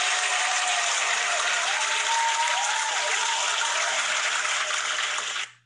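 Recorded crowd applause with a few rising-and-falling whoops over it, cutting in sharply and fading out near the end.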